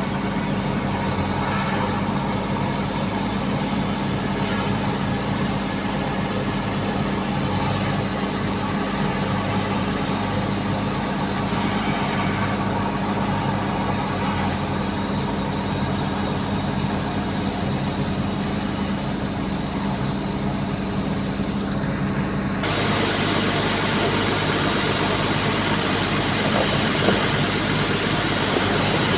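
Bulldozer's diesel engine running steadily with a low, even drone; about three-quarters of the way in it abruptly turns louder and harsher.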